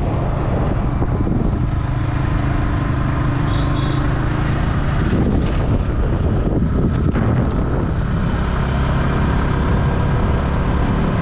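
Motorcycle engine running while riding, under a steady rush of wind and road noise. The engine's note fades for a few seconds around the middle and then comes back.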